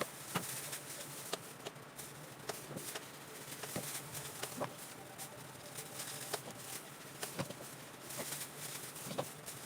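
Scattered light clicks and taps, irregular, from hair-dye application: a tint brush and dye container being handled while dye is worked into the roots, over a steady low hiss.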